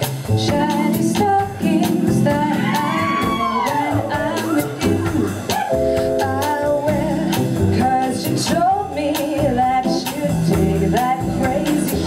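A small live jazz band with drums and upright bass backing a woman singing into a microphone, her held notes wavering with vibrato.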